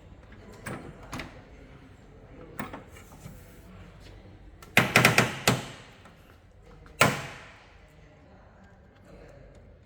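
Scattered light clicks, then a quick run of sharp knocks about five seconds in and a single louder knock that dies away about two seconds later, over a faint steady hum.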